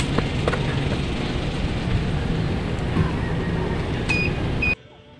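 Steady rushing rumble of wind on the microphone of a handheld camera carried outdoors, which cuts off sharply near the end to a much quieter background.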